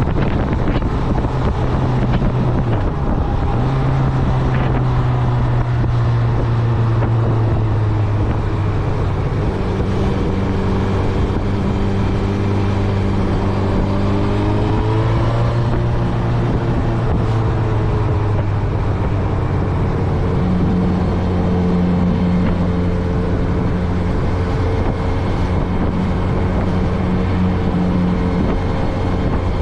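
Honda CB1000R's 998 cc inline-four engine running while the motorcycle is ridden, mostly holding a steady pitch over road and wind noise. Its note breaks and shifts briefly about three seconds in, and it rises in pitch about halfway through.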